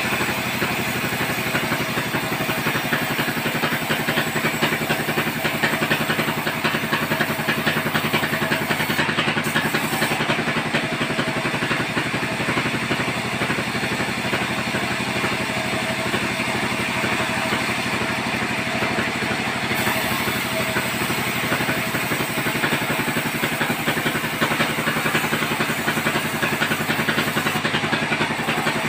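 Vertical band sawmill running steadily as its blade rips lengthwise through a log, the machine's drive hum under the constant rasp of the blade in the wood.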